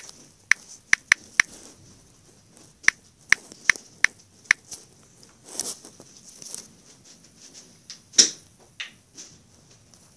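Typing on a smartphone's on-screen keyboard: short sharp key clicks in two quick runs, four and then five. A few softer taps follow, with one louder tap about eight seconds in.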